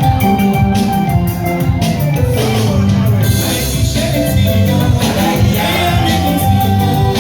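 Lively music with drums and a steady beat, playing loudly throughout.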